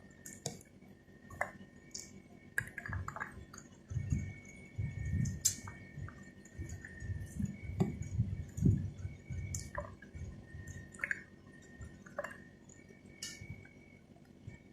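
Close-miked mouth sounds of someone chewing a mouthful of pomegranate seeds: soft wet smacking with scattered sharp clicks, the chewing heaviest in the middle.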